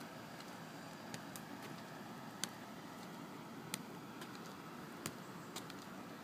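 Footsteps on a concrete sidewalk from a person walking in a KAFO leg brace without a shoe lift: faint, sharp taps at irregular spacing, roughly a second apart, over a steady outdoor hiss.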